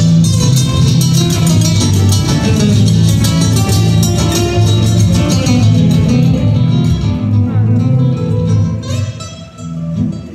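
Two guitars played live through amplifiers, a steady stream of plucked and strummed notes in a flamenco-like style. The playing thins out briefly near the end before picking up again.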